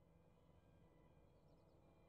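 Near silence: a faint low rumble with faint held high tones, and three tiny high chirps about one and a half seconds in.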